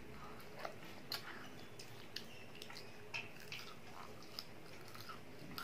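A child biting and chewing a battered chicken lollipop, with scattered short clicks and crunches of the bites.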